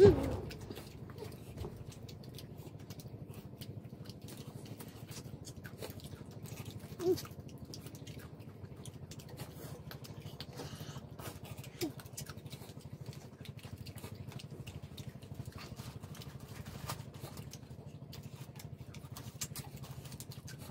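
Boiled shrimp being peeled and eaten by hand: many small, irregular crackles and clicks of shells and chewing over a steady low hum. A brief vocal sound right at the start is the loudest moment, with two shorter ones later.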